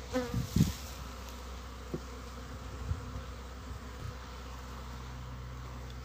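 Honey bees buzzing around their hives as a steady low hum. Near the start one buzz passes close with falling pitch, alongside a few brief low thumps.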